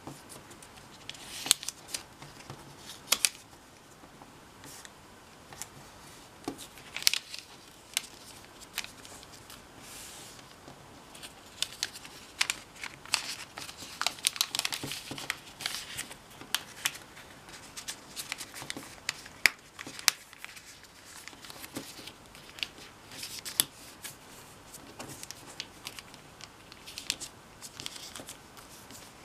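A square sheet of origami paper being folded and creased by hand: crisp paper crackles and rustling as folds are turned and pressed flat, with sharp snaps every few seconds and a denser stretch of rustling about halfway through.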